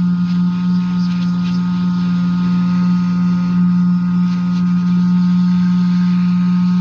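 Hot-air rework station blowing at full air flow: a steady rush of air over a constant low hum.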